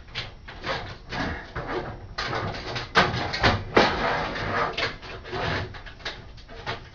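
Metal PC case parts being handled and worked apart by hand after the rivets were drilled out: irregular clanks, knocks and rattles, the loudest about three seconds in.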